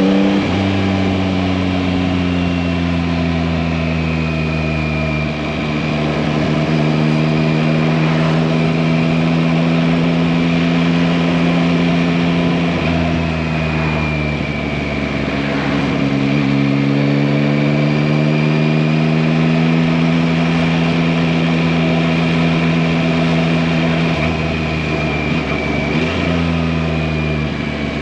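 Yamaha MT-09's 890 cc three-cylinder engine running steadily while riding. The engine pitch drops sharply at the start, then rises and falls gently, dipping again about halfway through and near the end as the throttle and gears change.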